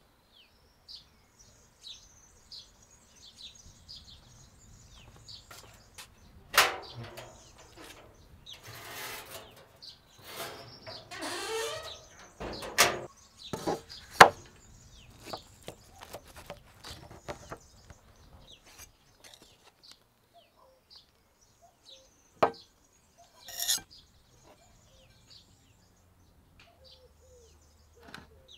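Small birds chirping with short, high calls throughout. Over them come several sharp knocks and clinks of handled tableware, with a few seconds of rustling or scraping between them in the first half.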